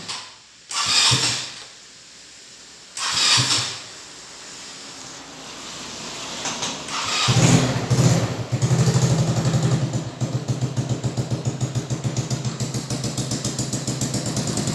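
Suzuki Burgman 125 scooter being started: the starter cranks in short bursts, then the single-cylinder engine catches about seven seconds in, revs briefly and settles into a steady, pulsing idle through an aftermarket Trioval exhaust.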